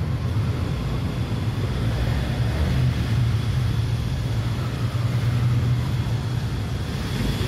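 Underground car park ambience: a steady low drone with no distinct events.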